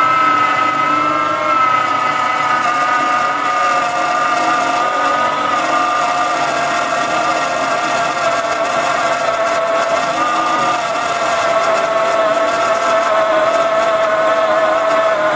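A 775 DC motor driving a toolpost drill on a lathe at about 18 volts, its cobalt spot drill cutting into hard mild steel tubing. The motor gives a steady whine whose pitch sags slightly as it cuts.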